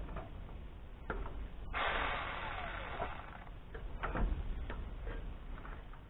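Footsteps knocking on the rungs of an extension ladder as a man climbs down it, a scattered series of knocks, with a rustling scrape lasting about a second near the middle.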